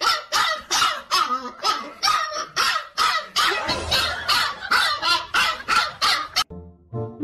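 A husky yapping in a quick, steady string, about three barks a second. The barking cuts off suddenly near the end, and music with brass-like notes comes in.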